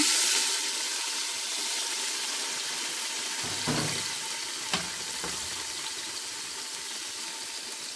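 Chopped onion and grated tomato sizzling in hot oil with lamb in a stainless steel pressure-cooker pot: a loud hiss as the wet vegetables hit the oil, settling into a steady frying sizzle. Two brief knocks near the middle.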